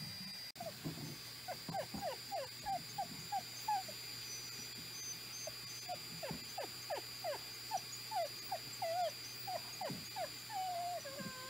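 A dog whining: a long run of short, falling whimpers, a few each second, with a short pause about halfway through, ending in a longer wavering whine.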